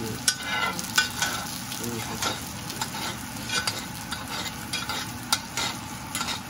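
Wagyu steak frying in foaming butter in a cast iron pan, a steady sizzle, while a metal spoon bastes it, with irregular clicks and scrapes of the spoon against the pan.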